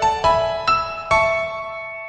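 Gentle piano background music: single notes struck one after another, the last one ringing and fading away over the final second.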